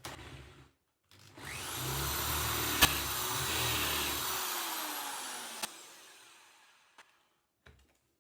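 Electric power-tool motor drilling a wide hole into a wooden mallet head. It starts about a second in and runs steadily with a high whine and a sharp click partway through. It is then switched off and winds down, its whine falling in pitch.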